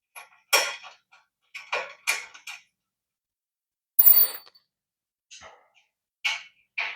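Scattered metallic clinks and taps of bolts, washers and an Allen key against the steel bed-frame parts during hand assembly, with a louder ringing clink about four seconds in.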